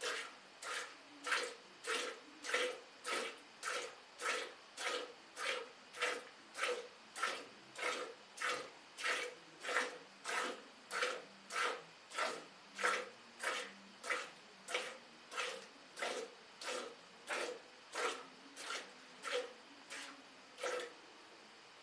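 Cow being milked by hand: squirts of milk hitting a metal bucket in a steady rhythm, about three strokes every two seconds. The strokes stop about a second before the end.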